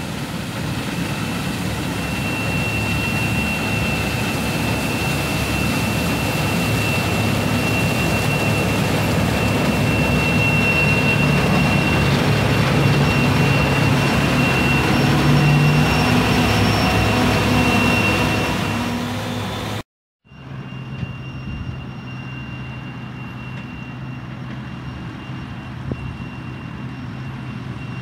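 Deutz-Fahr harvest machinery running: a steady engine and mechanical drone with a constant high whine, building a little over the first fifteen seconds. About twenty seconds in it breaks off abruptly and comes back quieter, with the same whine.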